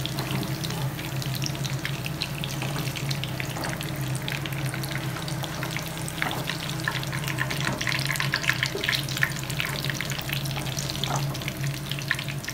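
Oil sizzling and crackling as peeled balot fry in a pan, with a steady low hum underneath.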